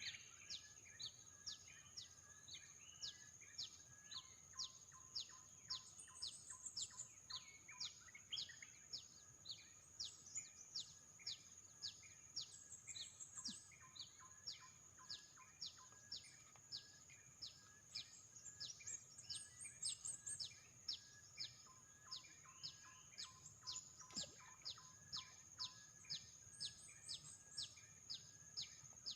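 Faint outdoor birdsong: a short falling note repeated about twice a second, with scattered other chirps, over a steady high insect whine.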